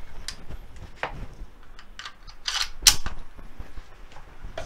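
Sharp metallic clicks and clacks of a Bersa Thunder 380 CC pistol being handled, the loudest a pair of clacks about halfway through. Near the end, the magazine is pushed up into the grip with a click.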